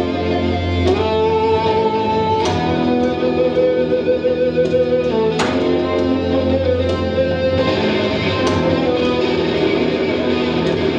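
Stratocaster-style electric guitar playing a free improvisation: single plucked notes left to ring out over a steady low drone.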